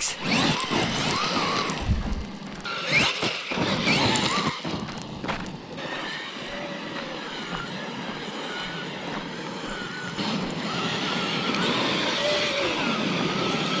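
Electric Traxxas RC monster truck driving on a gravel road: its motor whines, rising and falling in pitch with the throttle, over the hiss and crunch of its tyres on the gravel.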